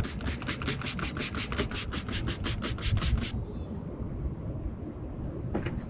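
Trigger spray bottle pumped in a fast run of short hissing squirts, about seven a second for some three seconds, wetting a fresh silicone bead. Then a gloved finger rubs along the wet seam to smooth the silicone.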